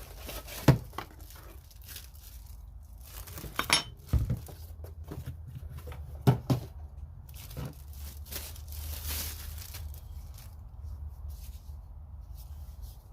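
Unboxing noises: packaging rustling and crinkling, with several sharp knocks and clicks from a new cordless die grinder and its box being handled and set down on a hard surface.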